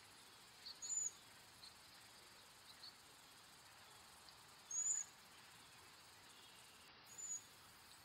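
Cedar waxwing giving three high, thin, lisping calls a few seconds apart, over a faint steady high hiss.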